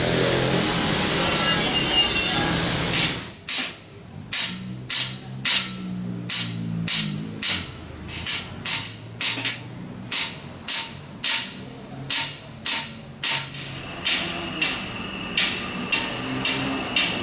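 Hand hammer beating a metal monk's alms bowl, steady blows about one and a half a second, some leaving a short metallic ring. The hammering starts about three seconds in, after a stretch of continuous rasping scraping on metal.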